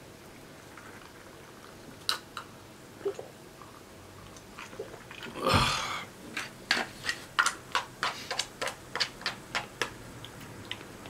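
Tabletop meal handling sounds: an iced highball glass is drunk from and set down, with one louder, brief clunk about halfway through. Then comes a run of quick, light clicks, about three a second, as disposable wooden chopsticks tap against a plastic rice container.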